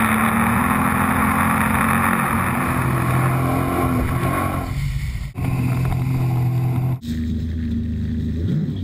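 Jet ski engine running at speed, with water rushing and spraying past the hull. The sound breaks off sharply twice, about five and seven seconds in, and the engine resumes each time.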